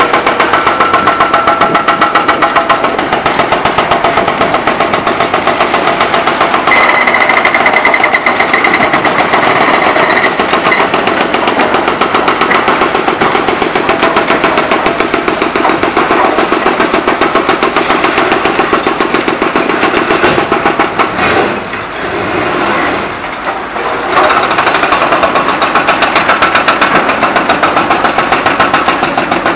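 Excavator-mounted hydraulic breakers hammering the concrete of a bridge deck in a fast, steady run of blows, easing off briefly about three-quarters of the way through before resuming.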